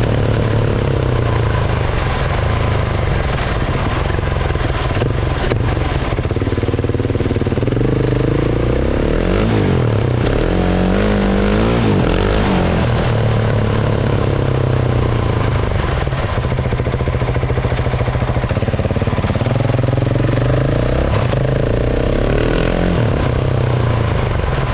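Husqvarna 701's single-cylinder engine running through an aftermarket Dominator exhaust, with the engine pitch rising and falling twice, around the middle and near the end, as the throttle is opened and closed.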